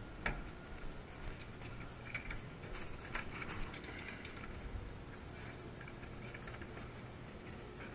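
A small fish being unhooked by hand: scattered faint clicks and taps, over a steady low rumble.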